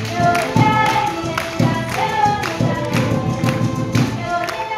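Youth string orchestra of violins playing, with a woman singing the melody into a microphone over a steady beat of low thumps about twice a second.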